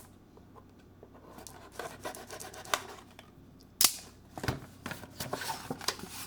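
A cable's retail box and packaging being opened by hand: scattered rustling, scraping and small clicks, with one sharp snap a little under four seconds in.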